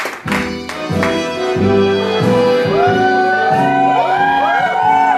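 Music starting up, with low notes pulsing in a beat; from about halfway in, overlapping high tones glide up and fall back in arcs over it.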